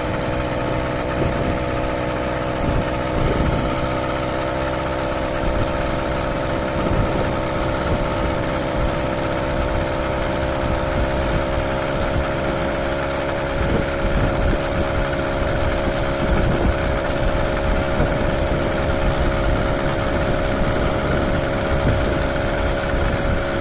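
Small engine of a motorized bicycle running steadily at an even cruising speed, its pitch holding constant.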